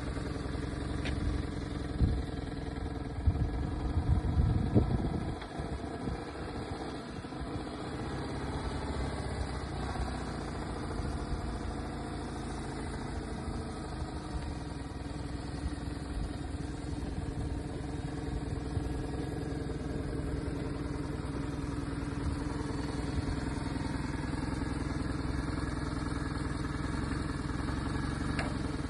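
BMW R1100GS boxer twin running at low revs as the motorcycle creeps through slow-speed manoeuvres, steady throughout. A few louder thumps come about two to five seconds in.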